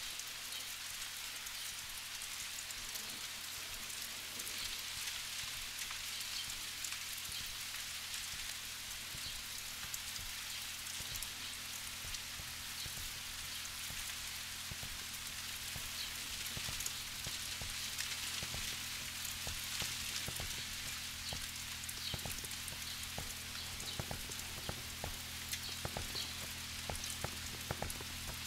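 Rain falling, with drips and patters growing more frequent in the second half, over a low steady drone.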